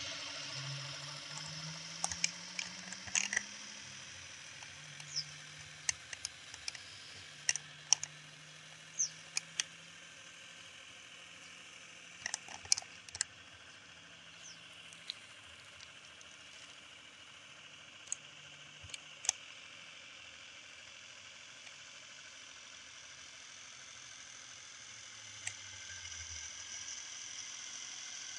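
The motor of a radio-controlled model outrigger boat running with a steady low hum, rising in pitch in the first seconds and dropping lower near the end. Short sharp high chirps and clicks come scattered over it, most of them in the first half.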